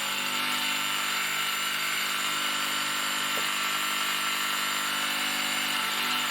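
Proxxon benchtop milling machine's small electric motor and spindle running steadily, an even whine over a hiss.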